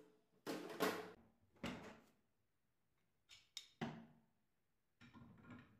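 Metal clanks and knocks of hand assembly: an adjustable wrench and steel brackets handled and set down on a metal workbench, about five separate hits with short ringing tails, the loudest about a second in.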